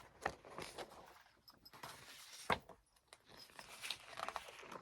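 Thin photo cards or pages being handled and turned: faint rustling and light taps, with one sharper tap about two and a half seconds in.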